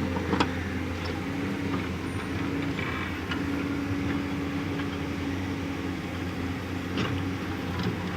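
JCB backhoe loader's diesel engine running steadily under work, with a few sharp metallic knocks, the loudest about half a second in.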